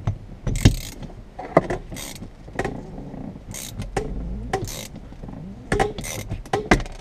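Ratchet wrench clicking in short, irregular strokes as it cranks a suction-cup windshield cut-out winder, reeling the cutting line through the windshield's urethane bead.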